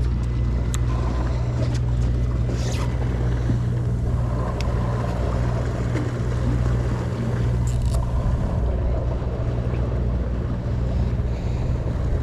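Steady low hum from a sportfishing boat's engine room, with wind and water noise over it and a few faint clicks.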